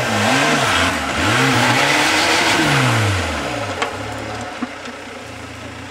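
Vitara off-road truck's 1.9 TDI turbo-diesel engine revving hard in two surges under load as it climbs a steep dirt bank. It falls back to a steady idle about three and a half seconds in, with a couple of sharp knocks after that.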